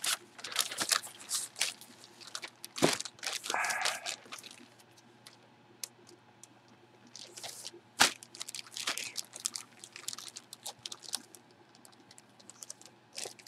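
Packaging crinkling and rustling as it is handled, in two stretches of irregular crackling, with a couple of sharp clicks.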